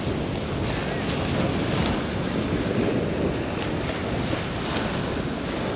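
Surf washing onto the beach with wind buffeting the microphone: a steady rushing noise. A few faint clicks come in the second half.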